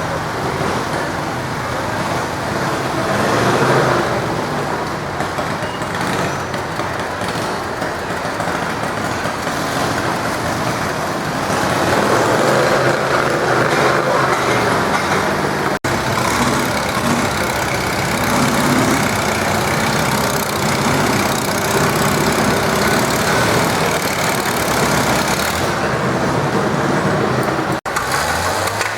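Farm tractor engine running hard under load, dragging a deadweight sled down the pulling track. The engine note is steady with some rise and fall and grows louder about halfway through, broken by two brief dropouts.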